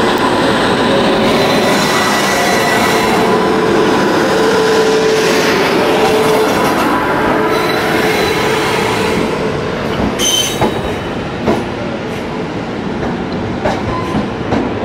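An electric-hauled Indian Railways express train pulling out of a station: a steady loud rumble of coaches rolling on the rails, with wheels squealing in steady ringing tones. A few sharp clicks come in the second half.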